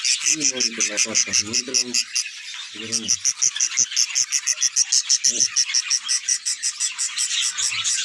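Budgerigar chicks in a clay-pot nest giving rapid, rhythmic high chirps, about six or seven a second, with a short break a couple of seconds in.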